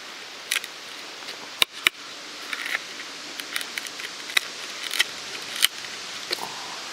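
Mora knife cutting through a wooden board: a series of irregular sharp clicks and knocks of the blade working the wood, a few of them louder.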